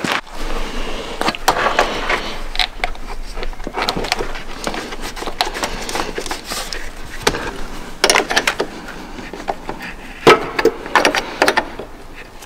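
Irregular metal clicks and knocks as a battery cable and its clamp are handled and fitted onto the terminal of a new heavy-duty tractor battery, with a few sharper knocks near the end.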